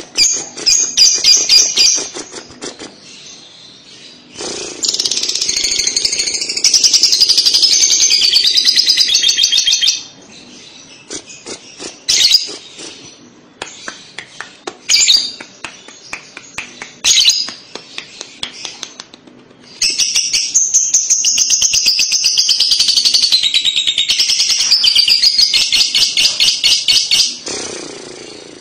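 Fischer's lovebird singing its 'ngekek' chattering song: long unbroken runs of rapid, high chatter, one about five seconds long and a longer one of nearly eight seconds in the second half, with short bursts and single calls between.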